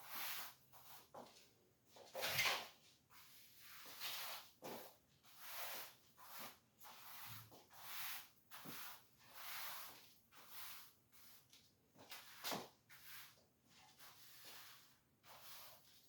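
Broom sweeping a floor: a run of short, faint brushing swishes about once a second, with a couple of sharper knocks in between.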